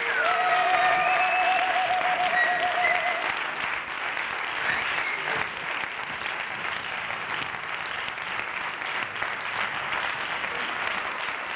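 Audience applauding steadily, with a few voices calling out over the clapping in the first few seconds.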